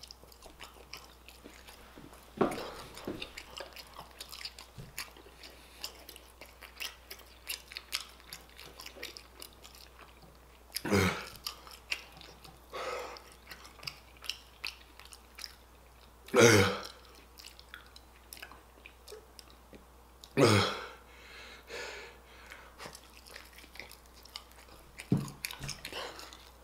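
Close-up sound of a person chewing crunchy Hot Cheeto-crusted fried chicken: a steady run of fine crackling crunches, with a few louder sounds several seconds apart.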